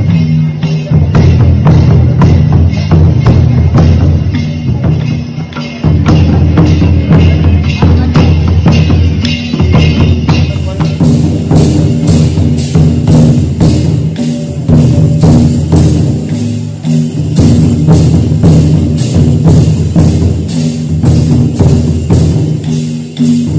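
Traditional Ho folk drumming: barrel-shaped hand drums played in a fast, steady rhythm for a line dance. The sound turns brighter about ten seconds in.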